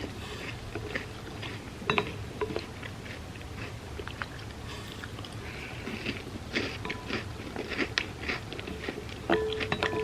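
Close-up chewing and crunching of vegan Bueno-style hazelnut-cream wafer pieces eaten as cereal in milk. Short ringing clinks come about two seconds in and near the end.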